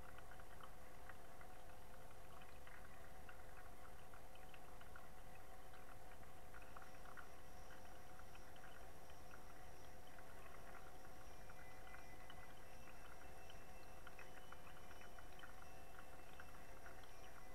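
A running aquarium's steady hum, with water gurgling and many small crackling ticks scattered through it.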